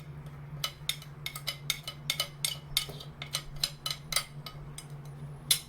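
A spoon clinking and tapping against a pot in a quick irregular run of light clicks, while spices are stirred into the water.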